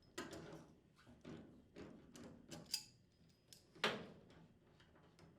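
Faint clicks, light knocks and rustling as water supply hoses are taken off a washer's inlet valve, with one sharper knock about four seconds in.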